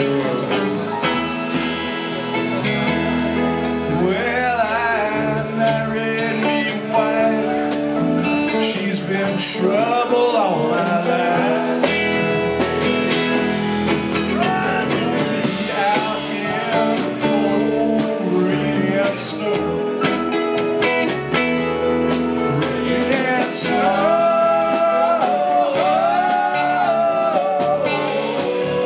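Live rock band playing a song: electric guitars, keyboard and drum kit together, with bending lead lines over a steady beat.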